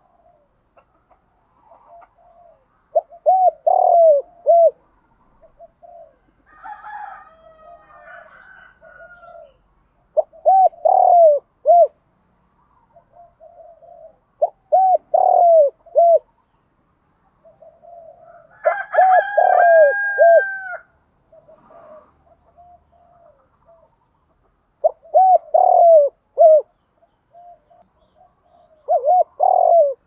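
Spotted dove cooing: a short phrase of several low, arched coo notes, given six times at irregular gaps of about four to six seconds.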